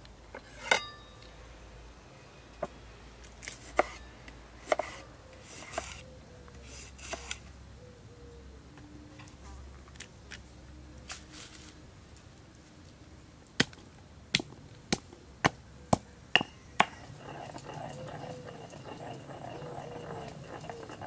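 Cooking sounds on a wooden cutting board: a ringing clink near the start and some handling and rustling, then a cleaver chopping ginger root against the board, seven sharp knocks about two a second.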